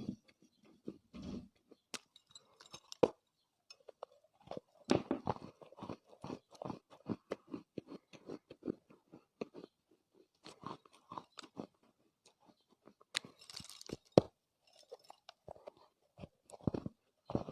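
A person biting and chewing soft Chinese loess clay, with quick, irregular crunches and crackles that are thickest in the middle, plus a few sharper snaps.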